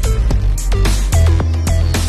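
Electronic background music with a heavy bass line and repeated quick downward-swooping synth notes over percussive hits.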